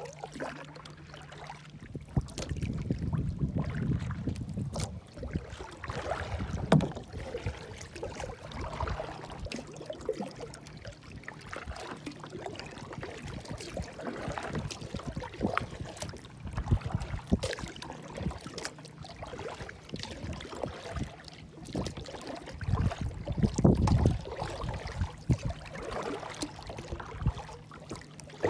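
Water lapping and slapping against a sit-on-top kayak's hull as it moves across open lake water, with small irregular knocks and splashes. Wind buffets the microphone in low rumbling gusts a few seconds in and again near the end.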